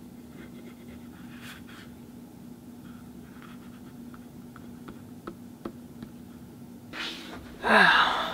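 Fisher Space Pen ballpoint scribbling on grid notebook paper: faint scratchy strokes for the first few seconds, then a few light clicks. Near the end comes a loud short vocal sound that falls in pitch.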